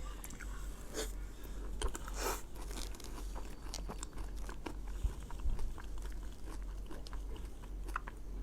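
Eating sounds: someone biting and chewing mousse cake, with scattered small clicks and crunches, over a steady low hum.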